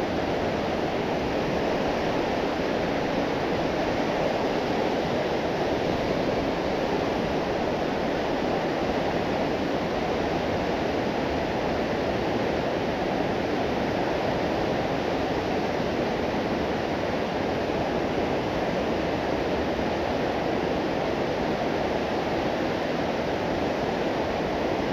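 Fast-flowing river rushing over rapids: a steady, loud wash of moving water with no breaks.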